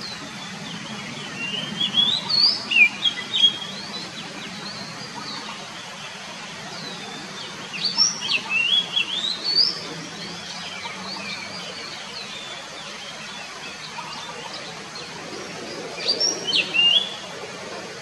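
Oriental magpie-robin singing three short phrases of quick whistled notes sliding up and down, a few seconds apart, over steady background hiss.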